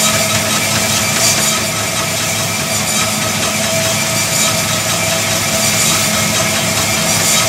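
Motorized power treadmill running steadily at a constant pace: an even motor hum with several steady tones over a whirring noise.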